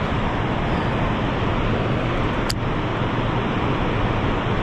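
Steady rushing of river water, an even noise with no break, with one brief sharp click about two and a half seconds in.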